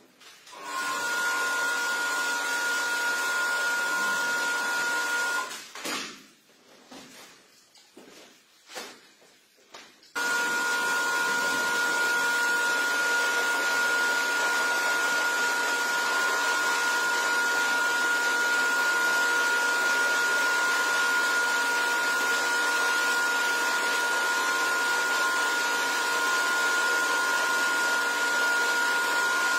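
Pressure washer running, a steady whine with the hiss of its water jet spraying into a wet shag rug. It stops about five seconds in, leaving a few soft knocks and shuffles, then starts again abruptly about ten seconds in and runs on steadily.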